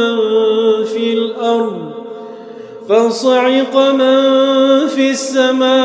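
Male Quran reciter chanting in melodic tajweed style, holding a long ornamented note that glides down and fades about two seconds in. After a short low pause, a new sung phrase starts about three seconds in.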